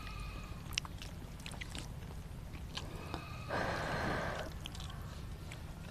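Eating sounds: small clicks and chewing, then a loud slurp of Maggi instant noodles about three and a half seconds in, lasting about a second.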